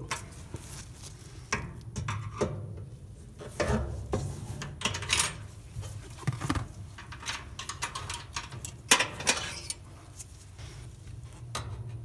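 Screwdriver clinking and scraping against a dryer motor's metal retaining clips and bracket while it pushes the clips down to release them: scattered short metallic clicks and scrapes.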